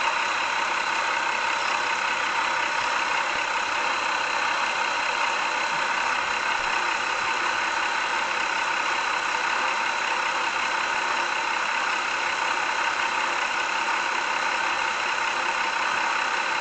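Railway train running steadily, a continuous even noise that does not change or break.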